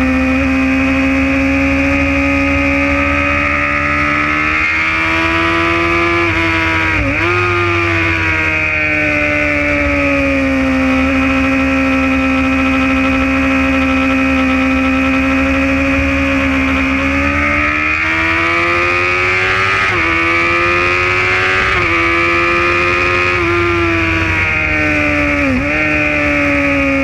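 Sport motorcycle engine at high revs, heard from on the bike: a steady high note that climbs in pitch twice under acceleration, with short sharp dips at gear changes, several of them about two seconds apart in the second half.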